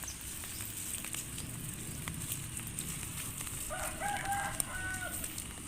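A rooster crowing once, a pitched call of about a second and a half that starts a little under four seconds in, over a steady background hiss.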